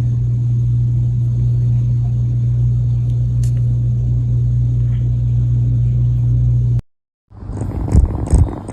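A steady, loud low hum that cuts off abruptly about seven seconds in. After a brief silence, a rougher sound with evenly repeating pulses begins near the end.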